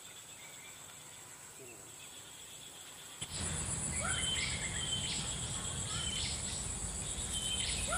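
Outdoor wetland ambience starting about three seconds in: a steady high insect drone, with short downward-sweeping chirps repeating two or three times a second over a low background rumble.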